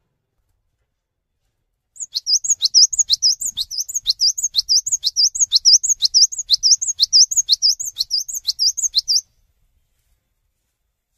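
Cinereous tit (gelatik batu) singing: a fast, loud run of high, sharp two-note phrases repeated about twice a second. It starts about two seconds in and stops abruptly after some seven seconds.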